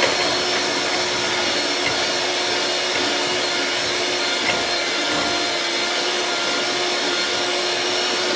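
Electric mixer running steadily, beating heavy cream into whipped cream: a continuous motor hum and whine.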